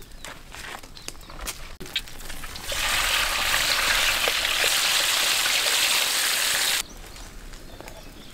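Raw potato slices dropped into hot oil in a large wok, frying with a loud, steady sizzle that starts abruptly about three seconds in and cuts off suddenly about seven seconds in.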